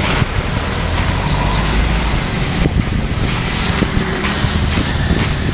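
Steady outdoor noise: a low rumble like road traffic mixed with wind buffeting a smartphone microphone.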